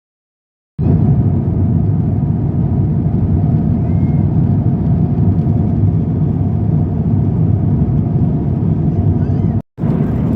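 Loud, steady low rumble of a moving vehicle, briefly cut off near the end.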